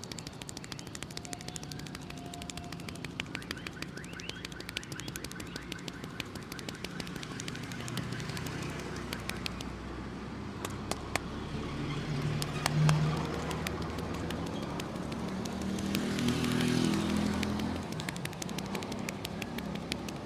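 Rapid hand-tapping of a head massage, many quick slaps a second, thick at first and sparser later. Underneath runs street traffic, with a motor vehicle passing about twelve seconds in and again around sixteen seconds.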